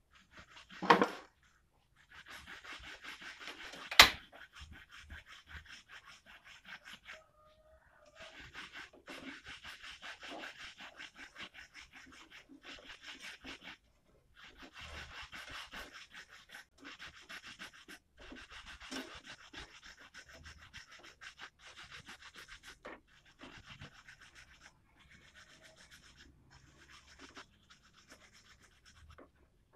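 Wooden spatula stirring and scraping coffee with coconut water in an aluminium saucepan as it heats toward the boil, in stretches of a few seconds with short pauses between. One sharp knock about four seconds in.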